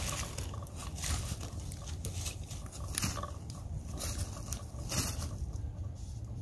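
Irregular crunching and rustling of dry leaves and grass under a person's boots and knees as he kneels at a beehive, over a steady low rumble.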